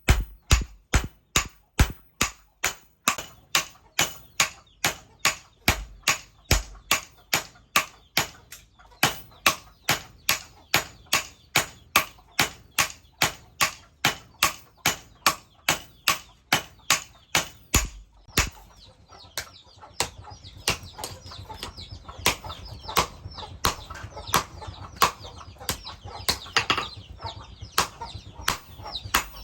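Hand hammer striking hot leaf-spring steel on an anvil at a steady pace of a little over two blows a second. About two-thirds of the way through, the blows turn lighter and less regular over a steady noise.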